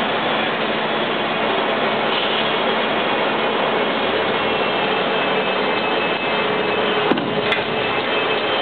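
Steady factory-floor din: a dense hiss of industrial fans and shop machinery with a few faint steady hums underneath. Two short sharp clicks, like a tool or metal tap, come about seven seconds in.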